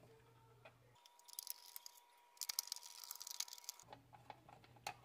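Faint light clicks and rattles of small plastic parts and tiny screws being handled, thickest in the second half. A faint steady tone sounds through the middle stretch.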